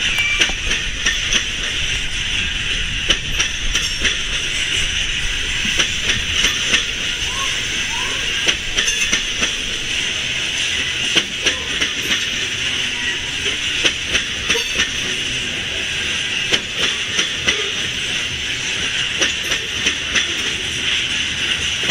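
Loaded coal hopper cars of a BNSF freight train rolling past, wheels clicking and knocking irregularly over the rails under a steady high hiss.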